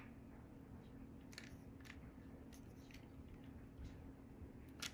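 Near silence: faint room tone with a few soft, short clicks, the loudest just before the end.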